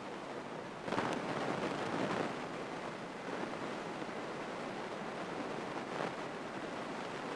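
Light single-engine airplane's piston engine and propeller running on the ground, heard from inside the cockpit as a steady rushing noise that swells slightly about a second in.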